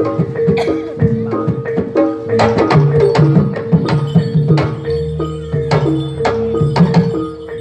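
Javanese jaranan gamelan music: kendang hand drums playing a busy rhythm over repeating metallophone notes, with one note held steadily throughout.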